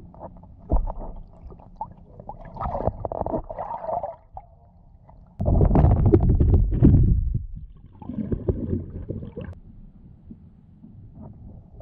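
Muffled underwater sound picked up by a GoPro inside its waterproof housing: water gurgling and sloshing against the case with scattered knocks, and a louder stretch of low rumbling about halfway through.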